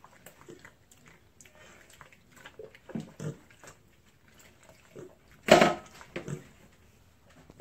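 A mini pig giving a few short grunts, the loudest a little past halfway.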